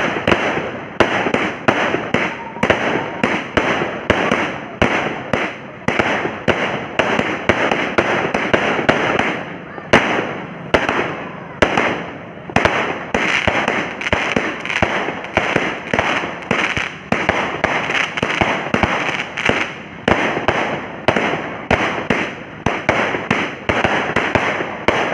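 Multi-shot firework cake (300 shots, 0.8-inch) firing continuously: sharp shots about twice a second, each trailed by crackling, with brief pauses about ten and twelve seconds in.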